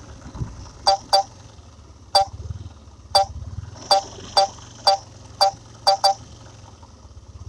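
A series of about ten short, sharp beeps at an uneven pace, some in quick pairs, over a steady low hum.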